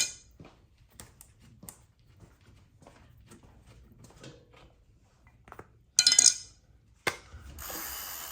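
Small metal clinks and taps of a tool and bicycle pedal hardware being handled, with a louder clatter about six seconds in and a rushing noise near the end.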